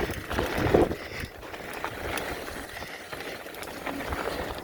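Mountain bike rolling fast down a dirt trail: steady tyre and riding noise with scattered clicks and knocks from the bike over the ground.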